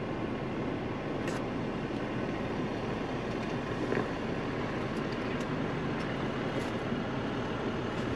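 Ford Bronco crawling slowly over a rocky off-road trail: a steady low engine hum with tyre and trail noise, and a few faint clicks.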